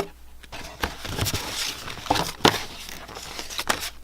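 Packaging and small items being handled: rustling and crinkling with scattered light clicks and taps, the sharpest about two and a half seconds in.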